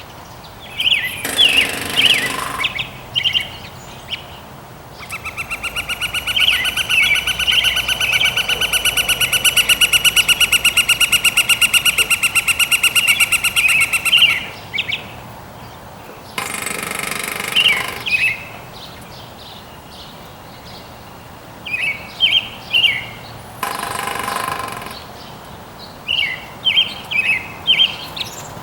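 Northern flicker drumming on a metal roof vent: three short, rapid, ringing rolls like a machine gun, which the owner takes as a bid to attract a mate. Between the first and second rolls the flicker gives one long, loud run of fast, even calls. Smaller birds chirp at intervals.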